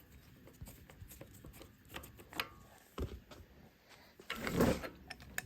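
Hand-tool and handling sounds as a minibike's handlebar throttle assembly is loosened and worked off the bar: scattered light clicks, a sharp knock about three seconds in, then a louder rubbing scrape near the end.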